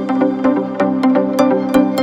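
Background music: an electronic track with sustained synth notes over a steady, regular beat.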